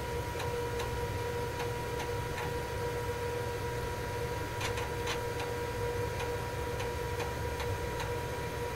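5.25-inch 360K floppy drive of an 8088 XT-clone PC reading the MS-DOS boot disk: irregular head-stepping clicks over a steady hum. The clicks come singly and in small groups, with a cluster about halfway through.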